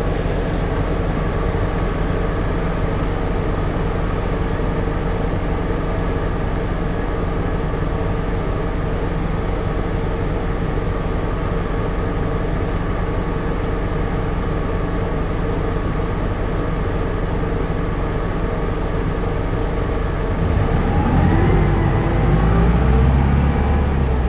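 Keio city bus heard from inside the cabin, its engine running at a steady pitch; about twenty seconds in, the engine note climbs and grows louder as the bus accelerates.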